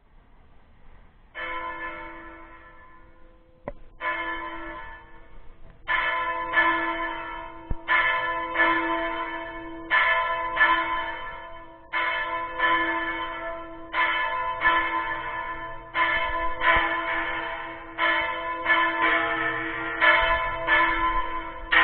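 Small church bell (campana menor) being rung repeatedly: two single strokes, then strokes in close pairs about every two seconds, each ringing on and dying away.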